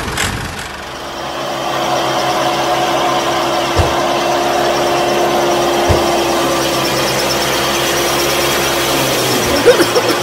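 Small motor of a DIY model tractor running steadily with a constant whine, settling in over the first couple of seconds. Two light knocks come about four and six seconds in, and the whine wavers near the end.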